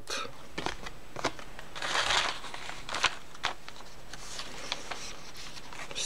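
Paper handling: a small card and the old paper pages of a handmade journal being handled and turned, with light taps and clicks and a short rustle about two seconds in.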